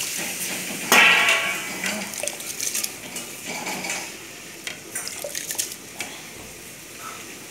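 Soaked rice scooped by hand from an aluminium bowl into a pot of boiling water: wet splashes and repeated clinks of the aluminium bowl and pot, with one loud metallic clank about a second in.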